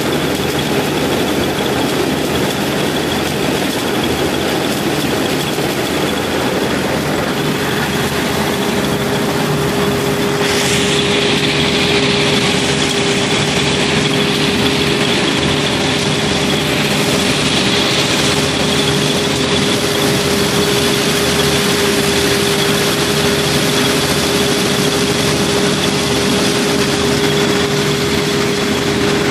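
Claas Dominator 78 combine harvester running steadily while harvesting corn, a continuous engine and machinery drone. A steady whine comes in about eight seconds in, and a higher rushing noise joins a couple of seconds later.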